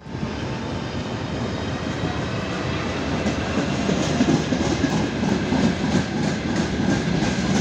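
Freight train passing behind a 2TE25Km diesel locomotive: a steady rumble of the engines and wheels on the rails, growing a little louder about halfway through.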